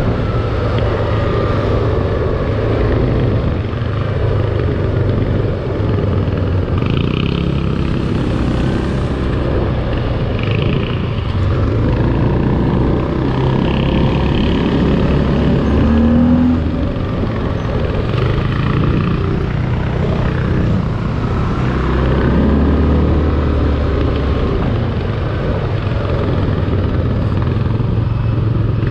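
Linhai 500 Promax ATV engine running under way, its pitch rising and falling a few times with the throttle.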